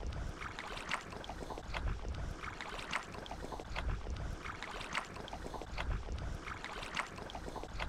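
Kayak paddling on open water: the paddle blades dip and splash about once a second, with scattered water drips and a low wind rumble on the microphone.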